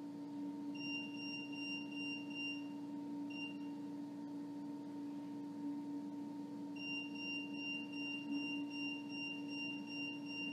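High electronic beeping from a ghost-hunting meter's alarm, pulsing about three times a second: about two seconds of it near the start, a short blip, then again from about seven seconds in. A steady low electrical hum runs under it.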